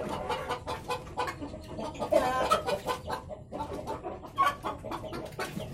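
Ayam kampung (Indonesian free-range village chickens) clucking: a rapid run of short clucks, with a louder, drawn-out call about two seconds in.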